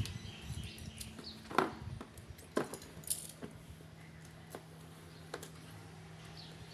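A few light clicks and taps of small objects being handled, the sharpest about one and a half seconds in, over a faint steady hum.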